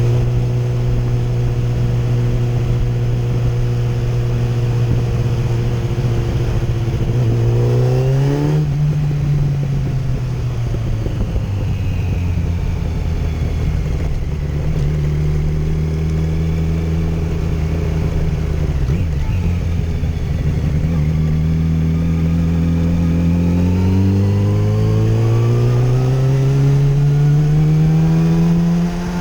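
2008 Yamaha FZ1's inline-four engine running under way. The revs climb and then drop back sharply about eight seconds in, like a gear change, hold fairly level, then climb steadily again over the last several seconds. This is the engine with its ignition coil replaced, the fix the owner says cured its stutter and misfire below 4,000 RPM.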